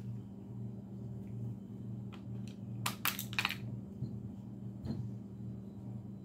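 A quick run of four or so sharp clicks about three seconds in, then a single click near the end, from the parts of a field-stripped pistol frame being handled and worked.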